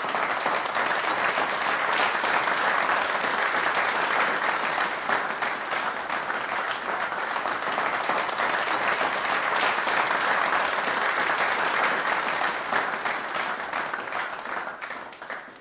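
Applause, many hands clapping steadily, fading out near the end.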